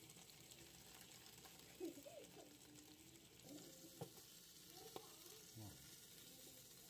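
Leg of mutton frying in a grill pan: a faint steady sizzle, with a few short knocks of metal tongs against the pan as the meat is turned.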